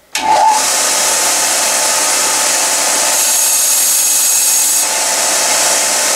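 Vertical abrasive belt sander running steadily, grinding a small brass part held against the belt. The sound cuts in abruptly at the start, with a sharper, higher hiss for about a second and a half in the middle.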